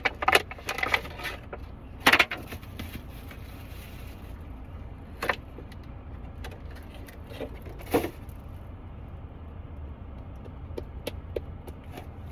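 A few short knocks and rustles of handling, the loudest about two seconds in and small ticks near the end, over a steady low rumble of a car cabin.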